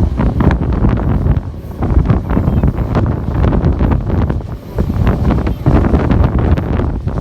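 Wind buffeting the microphone on a moving train: a loud, continuous low rumble broken by many irregular knocks and gusts.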